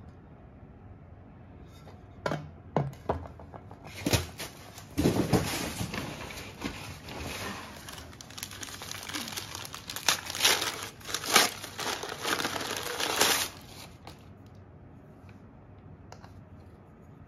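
A few knocks, then white packing paper crumpling and tearing for about nine seconds as it is pulled off a small ceramic vase.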